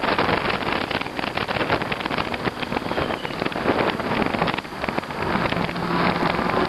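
Bicycle tyres rolling and crackling through snow and slush, with wind buffeting the microphone. A faint low hum joins near the end.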